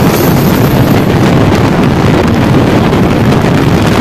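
Steady, loud rush of wind buffeting the microphone, held outside a passenger train of LHB coaches running at speed, mixed with the train's rolling noise on the track.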